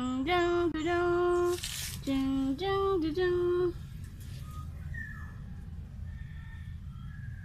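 A voice singing two short phrases of three held notes each, stepping up in pitch. Near the end come faint, short high squeaks.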